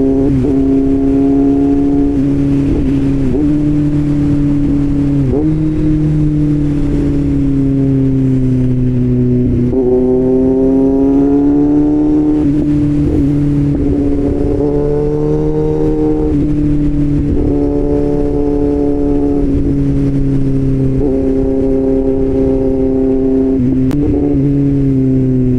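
Motorcycle inline-four engine running with an aftermarket SC Project-style exhaust, heard from the rider's helmet mic at steady riding revs. The engine note rises and falls gently as the throttle changes, over wind noise.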